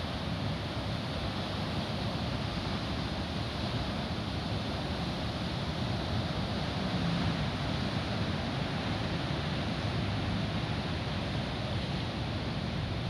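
Steady wind on the microphone mixed with the rumble of large ocean surf breaking offshore, an even roar with no distinct events.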